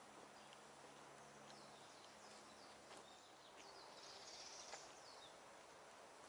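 Faint woodland ambience with a few distant bird chirps, short high downward-sliding calls, and a brief high trill about four seconds in.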